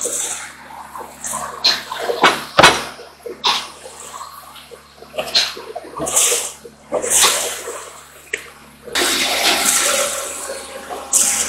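Water gushing and splashing in uneven surges from a PVC discharge pipe into a steel settling tank as a newly drilled well is developed. About nine seconds in, it settles into a steady rushing flow. A low steady hum runs underneath.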